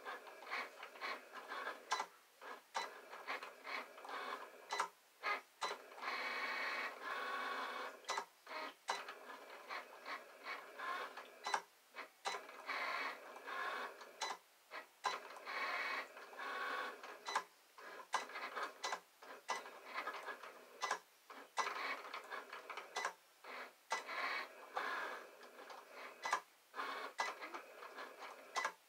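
Desktop electronic vinyl cutting machine cutting a stencil out of vinyl: its motors whir in short stop-start strokes as the blade carriage moves, with brief pauses between strokes.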